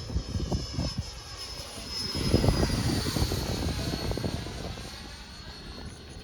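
Remote-control jet flying past: a high-pitched whine grows louder, then drops in pitch about two and a half seconds in as it passes by and fades away. Low wind buffeting on the microphone runs underneath.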